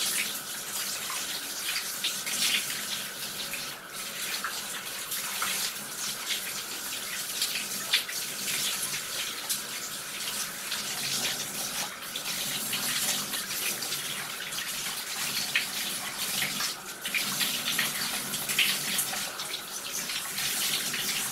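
Handheld shower head spraying water onto clothing and splashing into a bathtub: a steady hiss of running spray.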